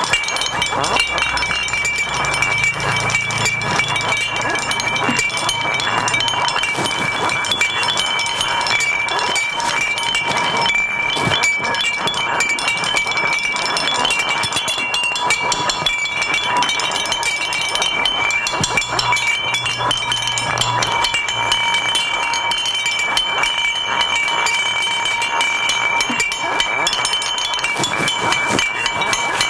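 Recyclable waste such as cans and packaging rattled and struck as improvised percussion: a dense, continuous clinking and rattling over a few steady high ringing tones, with a low hum swelling in twice.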